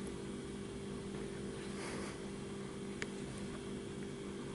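Steady low electrical hum of room tone, with a faint soft rustle about two seconds in and a single light click about three seconds in.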